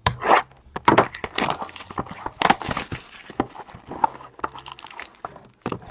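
Plastic wrapping on a trading-card box or pack crinkling and tearing as it is opened, a string of irregular rustles and crackles.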